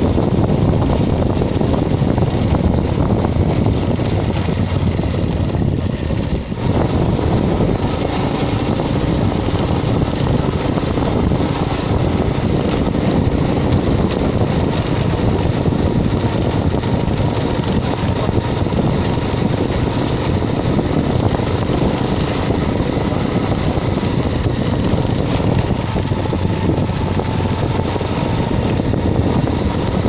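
Motorcycle engine running steadily while riding over a rough, stony dirt track, with wind buffeting the microphone.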